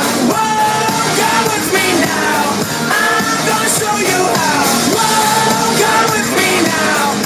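Rock song with a sung vocal line over a full band.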